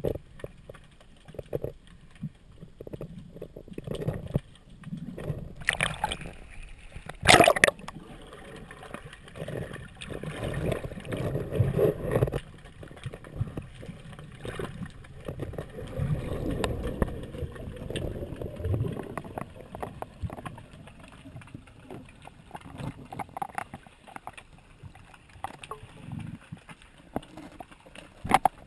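Muffled water noise heard from a camera underwater: uneven sloshing, gurgling and low rumbling as a diver swims, with scattered small clicks and one sharp, loud knock about seven seconds in.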